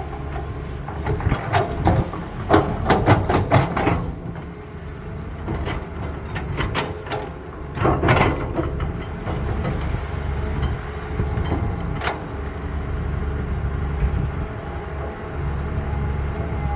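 Heavy diesel engine of a CAT excavator running steadily, with a quick run of sharp metallic clanks and knocks a second or two in and another loud clank about eight seconds in.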